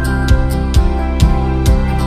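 Background music with a steady beat, about two beats a second, under held notes.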